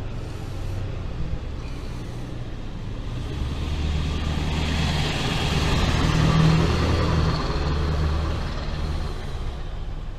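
A road vehicle passes on the street: its tyre and engine noise swells, peaks about six and a half seconds in, then fades, over a steady low engine hum.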